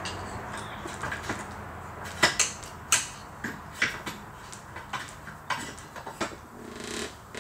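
Hand tools clinking on the metal trim-cylinder mounting hardware of a MerCruiser Alpha One Gen II outdrive: a string of irregular sharp metallic clicks and clanks, the loudest a little over two and three seconds in.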